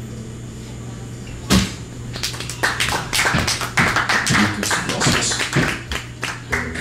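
Small audience clapping, starting with one loud thump about a second and a half in; the applause dies away shortly before the end.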